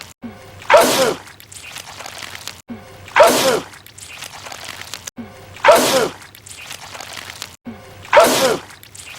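A man's loud sneeze, repeated four times at even intervals about two and a half seconds apart. Each sneeze is identical, a sharp burst ending in a falling pitch, as if the same sneeze were looped.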